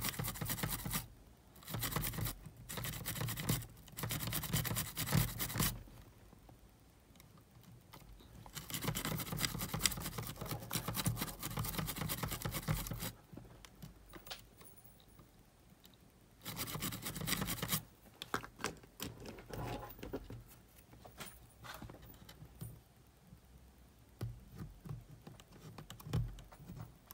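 Toothbrush bristles scrubbing a cassette Walkman's circuit board in several scratchy bursts a few seconds long, with quieter pauses between. Fainter ticks and scratches fill the last third.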